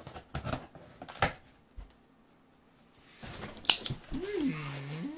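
Knife blade slitting the packing tape on a cardboard box in a few short sharp cuts, then the cardboard flaps pulled open with a rustle and a snap. A voice makes a drawn-out sliding sound near the end.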